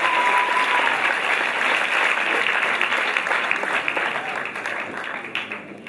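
Theatre audience applauding, the clapping dying away over the last second or two.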